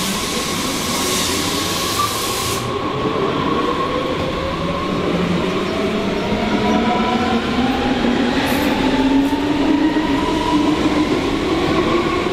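Red S-Bahn electric multiple unit pulling away close by: its traction motors whine in several tones that rise steadily as it gathers speed, over running noise from the wheels on the rails. A hiss of air sounds for the first couple of seconds.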